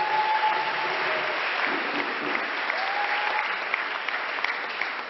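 A church congregation applauding steadily, the clapping thinning a little near the end.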